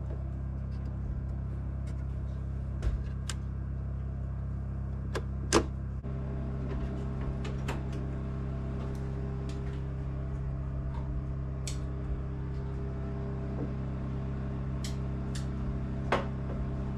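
Portable power generator running steadily under a low, even hum, with the sharp clicks of circuit breakers and switches being flipped several times. The hum's tone changes about six seconds in, as the load on the generator changes.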